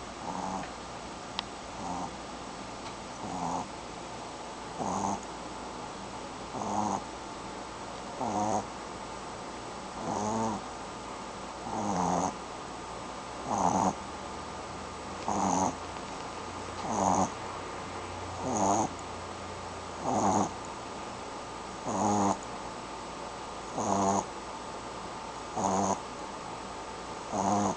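A sleeping pet snoring in a slow, even rhythm, one short rattling snore about every 1.7 seconds, growing louder over the first ten seconds or so.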